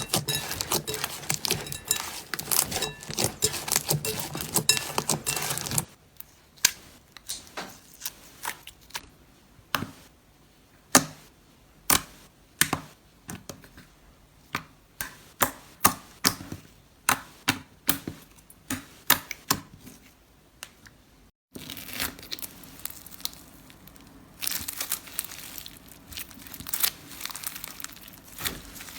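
Slime being kneaded and stretched by hand: dense crackling and tearing for the first six seconds, then a run of separate sticky pops about twice a second, then dense crackling again for the last seven seconds.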